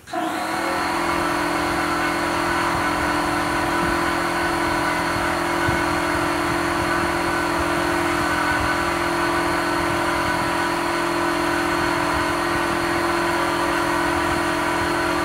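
RIDGID 6-gallon oil-free electric pancake air compressor switching on suddenly and running steadily with a droning whine. It is cycling on to refill its tank while supplying air to a diver's hookah breathing line.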